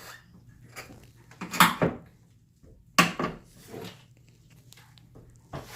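Metal suspension hardware, a spacer and nut on the spring shaft, being handled and fitted: a few separate clinks and knocks over a faint steady hum.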